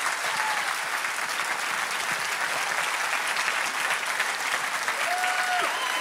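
Large audience applauding steadily at the close of a speech.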